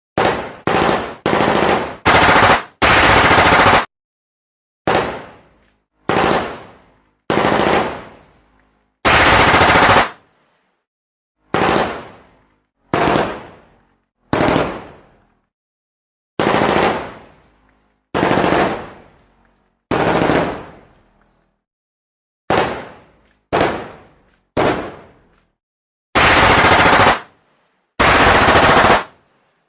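Gunfire sound effects: about twenty separate bursts and shots with dead silence between them. Some bursts hold steady for about a second and cut off suddenly. Others start sharply and fade away in an echoing tail.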